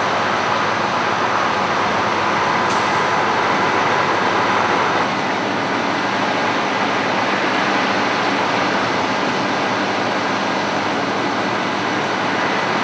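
Steady diesel engine noise from idling emergency vehicles close by, with highway traffic behind.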